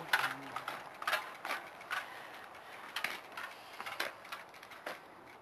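Bicycle rear-hub freewheel clicking as the bike coasts and is wheeled to a stop, with scattered sharp clicks and knocks about one or two a second.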